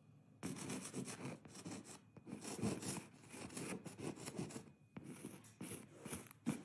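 White pastel stick scratching and rubbing across a painted surface in a run of quick, short strokes, starting about half a second in.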